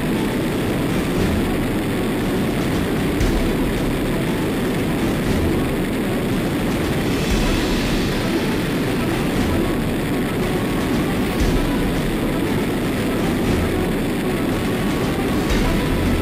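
Steady rushing airflow noise buffeting a camera mounted under a jet aircraft's wing in flight.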